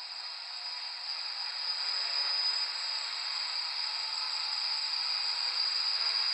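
Electric quadcopter hovering and flying, its propellers and motors giving a steady whirring hiss with a thin high whine, growing gradually louder as it comes closer.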